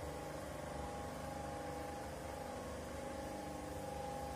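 Steady drone of block-ice plant machinery running, a low hum with a few held pitched tones and no change in speed.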